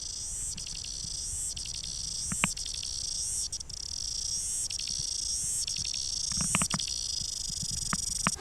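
Cicadas singing on a tree: a steady, high-pitched chorus that swells in a regular pulse a little faster than once a second, with a few soft clicks.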